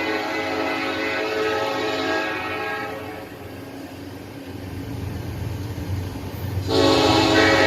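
Locomotive Nathan Airchime K5 five-chime air horn sounding its chord: one blast that ends about three seconds in, then a louder blast starting near the end. The train's low rumble carries on between the blasts.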